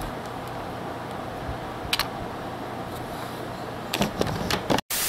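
A steady hiss with a sharp double click about two seconds in and a quick cluster of clicks and knocks near the end, followed by a sudden burst of loud, even static.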